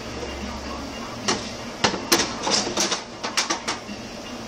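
A string of sharp clicks and light knocks, bunched from about one to nearly four seconds in: a desktop computer case being handled with a Phillips screwdriver as its screws are undone to open it.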